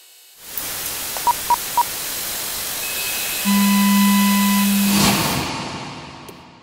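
Electronic static hiss with three quick beeps, then a steady low tone with a higher tone over it for under two seconds, like a test signal. The tones cut off in a short burst near the end and the hiss fades out.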